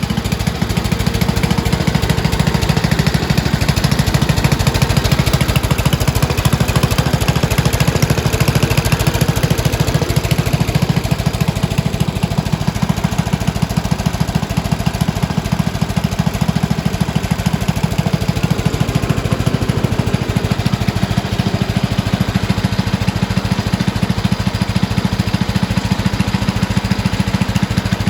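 The 8 horsepower Briggs & Stratton single-cylinder engine of a 1975 Montgomery Ward riding mower running steadily with a fast, even, rough-edged pulse, picking up slightly in the first second. It sounds pretty mean.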